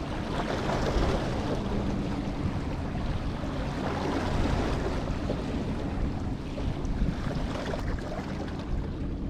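Steady wind noise on the microphone over bay water, with a low steady hum underneath.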